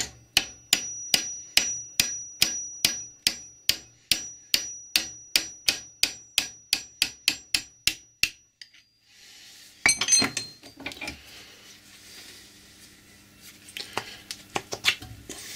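Steady hammer blows on a punch set in the eye of a claw hammer head clamped in a bench vise, driving out the old wooden handle. The blows come about two and a half a second with a faint metallic ring, and stop about eight seconds in. A clatter follows about two seconds later, and a few light knocks come near the end.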